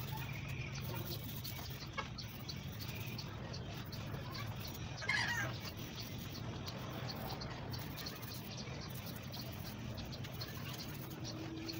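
Chickens clucking in the background, with one louder call about five seconds in, over a steady low hum.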